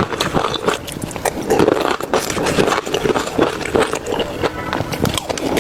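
A person eating close to the microphone: chewing and smacking with many quick wet mouth clicks.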